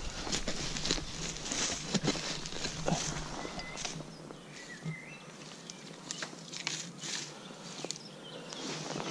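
Irregular crunching and rustling of dry leaf litter and twigs on the forest floor, busier in the first few seconds and quieter after about four seconds in.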